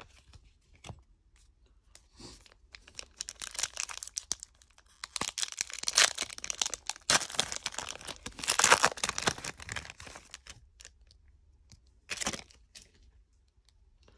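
Foil wrapper of a 1995-96 Topps Stadium Club card pack being torn open and crinkled, a dense crackling that builds a few seconds in and dies away about ten seconds in, with one short crinkle near the end.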